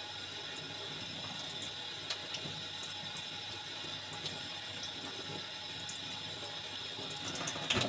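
Kitchen tap running steadily, the stream pouring over a sharpening stone held under it and splashing into a stainless steel sink as the stone is wetted before sharpening.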